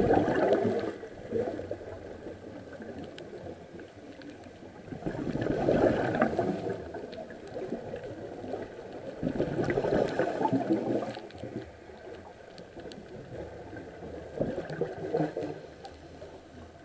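A scuba diver's exhaled bubbles gurgle out of the regulator underwater. There are four bursts, each a second or two long, coming every four to five seconds in a steady breathing rhythm.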